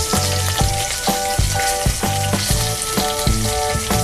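Bata fish frying in mustard oil in a steel wok, a steady hissing sizzle. Background music with a steady beat plays over it.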